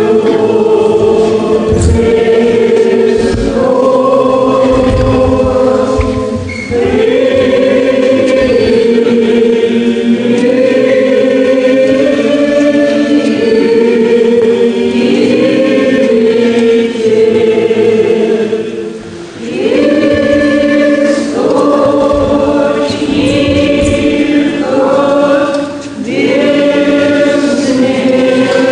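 Orthodox church choir singing a slow liturgical chant in sustained chords, pausing briefly between phrases, most clearly about two-thirds of the way in.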